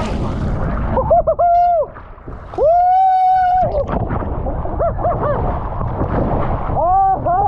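Riders on a water slide yelling and whooping in several long held cries, the longest about three seconds in, over a steady rush of water and air.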